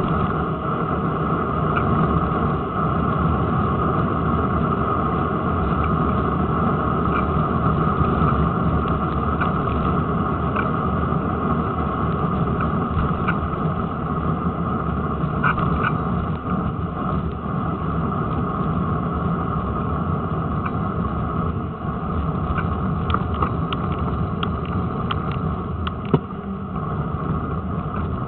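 Steady rumble of road vibration and wind picked up by a camera clamped to a bicycle's front forks while riding on tarmac, with scattered light clicks and rattles and one sharper knock near the end.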